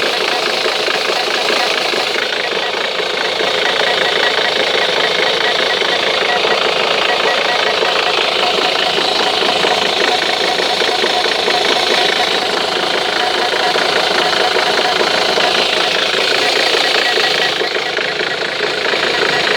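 Ford Mondeo Mk3 engine running steadily with a dense, fast ticking noise, the unexplained strange sound the owner is asking about.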